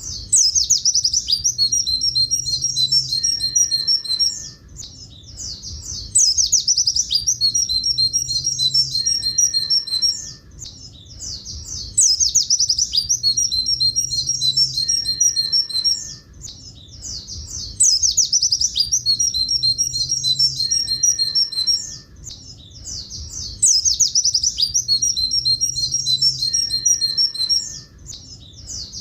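White-eye (pleci buxtoni) singing its long 'tulit tulit' song, a rapid run of high notes. The same phrase comes round about every six seconds with a short pause between, as a looped recording.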